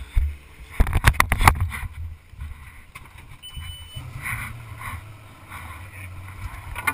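An 18-foot Outlaw Bobcat jet boat running a shallow creek: a steady low rumble of the jet drive and water under the hull. A cluster of sharp knocks and thumps comes about a second in, and a short high beep just before the middle.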